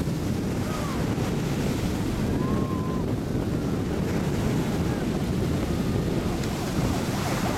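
Ocean surf washing up on the beach, with wind buffeting the microphone in a steady low rumble.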